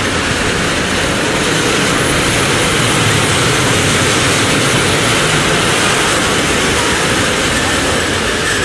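Small elevated ride train running along its steel track overhead, a steady rolling noise.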